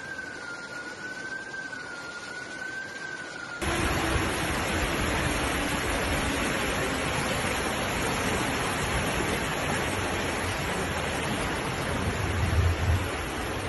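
A siren wails faintly, its single tone slowly rising and falling. After about three and a half seconds it cuts off abruptly to the loud, steady rush of fast floodwater torrenting through a street.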